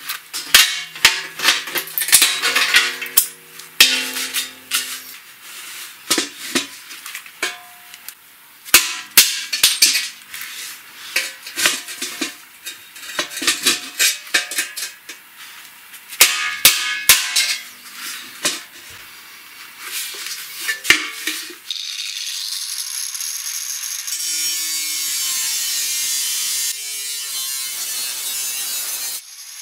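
Sharp, irregular metal clinks and knocks as rivets are worked out of an old galvanized steel bucket with pliers. About 22 seconds in, an angle grinder with a thin cut-off disc starts cutting the bucket's sheet metal, a steady high hiss.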